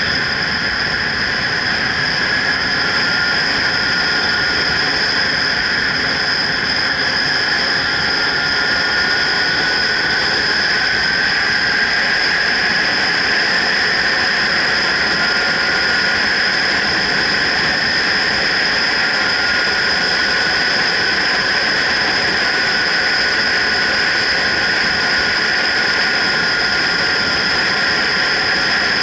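Steady wind rush on a helmet-mounted action camera on a moving motorcycle, with the motorcycle's engine and road noise underneath. A high whistle runs through it and drifts a little in pitch.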